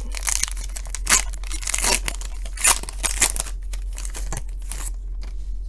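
Foil wrapper of a Panini Certified football card pack being torn open and crinkled by hand: a series of short rips and crinkles, the sharpest a little past one second in and around the three-second mark.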